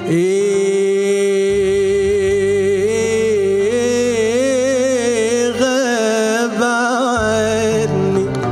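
Male singer holding a long sung note with vibrato in an Egyptian classical Arabic song, then ornamenting it in wavering turns that climb higher about three seconds in and settle back down near the end. A band accompanies underneath.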